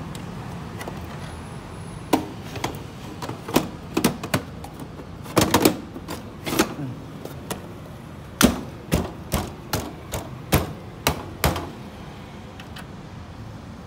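Irregular sharp clicks and knocks of hands handling cables and parts inside an open desktop computer case, over a steady low hum.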